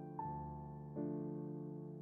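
Slow, soft background music of sustained piano chords: a single high note is struck just after the start and a new chord comes in about a second in, each ringing and slowly fading.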